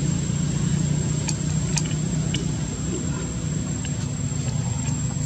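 Steady low hum of an engine running, with a constant high-pitched whine and a few faint clicks.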